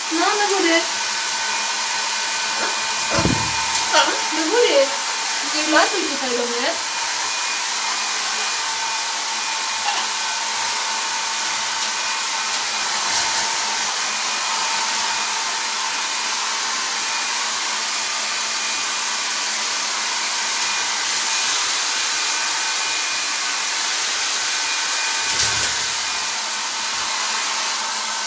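Handheld hair dryer running steadily: a continuous rush of air with a faint motor whine, blowing on a wet blue-and-gold macaw's feathers.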